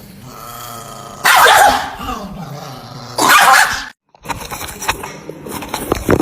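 Chihuahua growling, then snarling with two loud harsh barks about two seconds apart, the growl sinking in pitch between them. After a short break near the end come quieter clicks and rustling.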